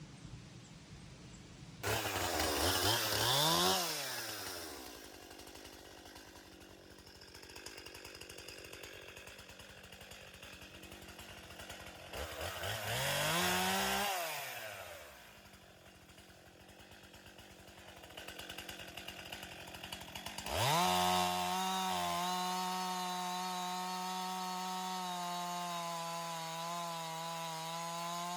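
Chainsaw engine revving up and dropping back twice with idling between, then held at high revs for about eight seconds while bucking firewood.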